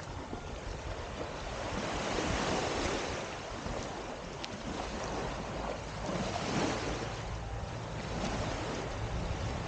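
Small waves washing onto a sandy beach, the surf swelling and easing every few seconds, with wind rumbling on the microphone.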